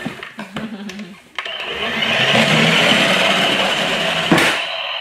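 Battery-powered toy cement mixer truck playing its motor sound effect: a steady whirring noise that starts about a second and a half in and cuts off with a click near the end. Light handling clicks come before it.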